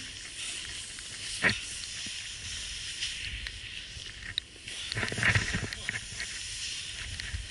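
Powsurf board sliding through fresh powder snow, a steady hiss of snow under the board. There is a short sharp swish about a second and a half in, and louder scraping swishes around five seconds in as the board turns.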